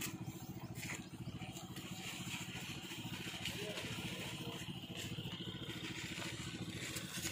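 A small engine idling steadily with an even, rapid pulse.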